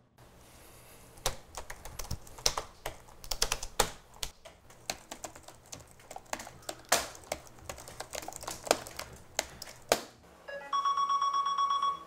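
Fast, irregular typing on a laptop keyboard, a dense run of clicks. Near the end it stops and a steady electronic tone sounds for about a second: an incoming call tone on the computer.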